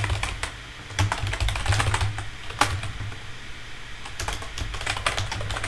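Typing on a computer keyboard: irregular bursts of keystrokes with a short lull in the middle, over a steady low hum.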